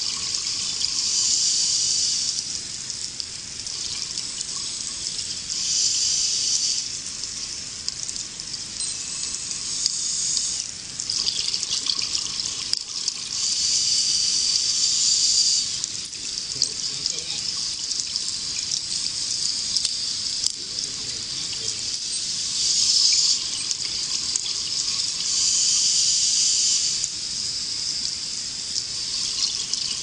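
Scuba divers' exhaled bubbles rushing out of their regulators underwater, in bursts of a second or two every few seconds over a steady watery wash.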